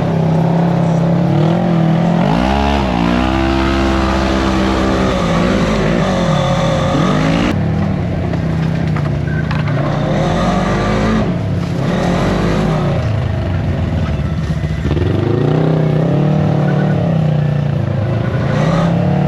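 Polaris RZR 900 side-by-side engine revving up and down repeatedly while driving, its pitch climbing and falling several times.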